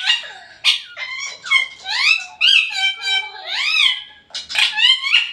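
Ring-necked parakeets chattering and screeching: a rapid run of short, shrill calls that rise and fall in pitch.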